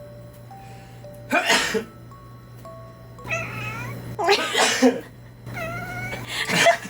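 A person sneezes and a cat meows back each time: a sneeze about a second and a half in, a drawn-out meow after it, then a second sneeze a little past four seconds followed by another meow, and a short sneeze-like burst near the end. Soft background music with bell-like notes plays underneath.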